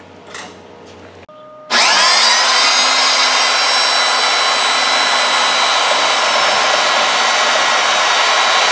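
A high-speed power tool motor starts about two seconds in, spins up with a rising whine and then runs steadily at full speed.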